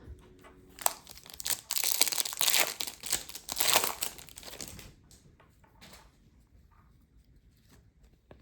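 A foil hockey card pack wrapper crinkling and tearing as it is ripped open, dense for a few seconds, then a few faint handling clicks.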